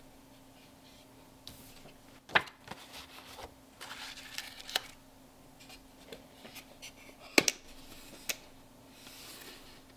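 Light kitchen handling sounds: a few sharp clicks and knocks, two of them louder, with brief rustling in between, over a faint steady hum.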